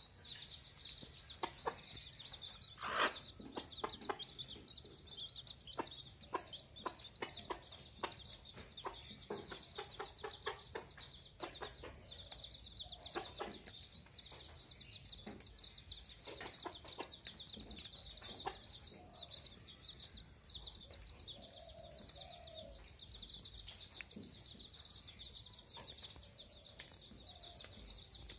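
A brood of baby chicks peeping continuously, high and rapid, while a mother hen clucks softly now and then as they feed.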